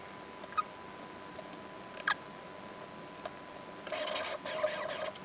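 Hand tools working bolts on a 3D-printed CNC gantry: a few light clicks, one with a quick falling squeak, then about a second of scraping rasp near the end. The motor-plate bolts are being tightened to push the plate back and tension the drive belt.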